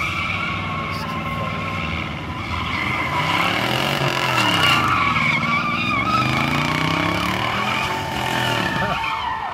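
White Cadillac sedan doing a burnout: its spinning tyres squeal on the asphalt while the engine revs up and down under heavy throttle, rising and falling several times in the middle of the stretch.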